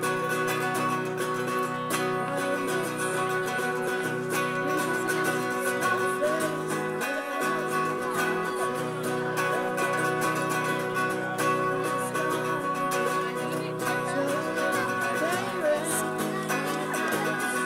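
Two acoustic guitars strummed together in steady chords, with a boy's voice singing over them.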